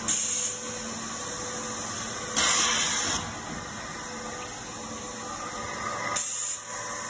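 Three short hisses of compressed air from the pneumatic cutting unit of a gasket-strip cutting machine as it cycles, the middle one the longest, over a steady machine hum.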